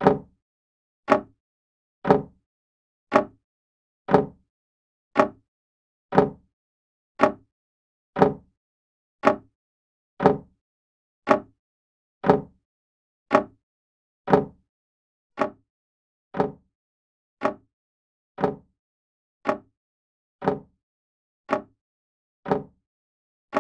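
Old grandfather clock ticking steadily, one sharp tick about every second.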